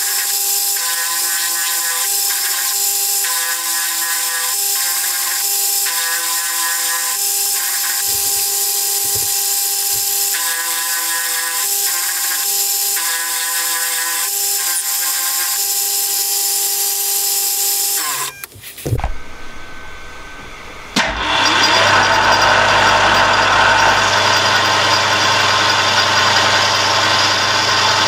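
Metal lathe running under power while its cutting tool turns down a metal shaft: a steady whine with cutting noise. About 18 seconds in the sound drops out briefly, then comes back louder and rougher with a low hum.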